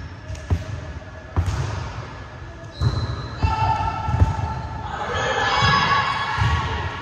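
A ball bouncing on a hardwood gym floor, a series of separate thuds, with voices calling from about halfway through.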